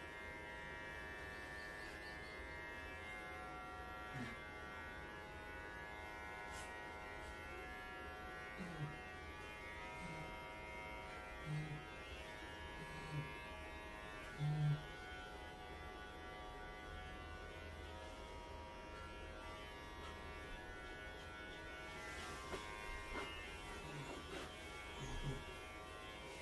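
Electric pet grooming clippers running steadily with a buzzing whine while shaving a Welsh Corgi's thick coat. A few brief low sounds come over the buzz, the loudest about fourteen seconds in.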